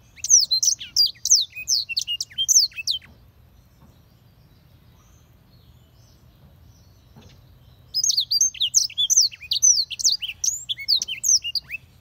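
Black-throated canary singing: two bursts of rapid, quick down-slurred high notes, one about three seconds long at the start and another beginning about eight seconds in, with a pause between.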